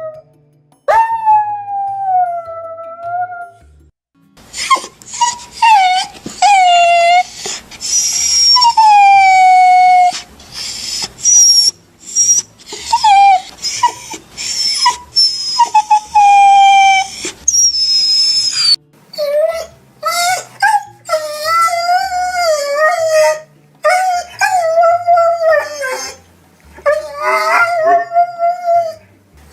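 Dogs and puppies crying: a string of separate drawn-out whines and howls that slide up and down in pitch, with shrill, very high-pitched puppy cries through the middle and shorter, wavering whimpers near the end.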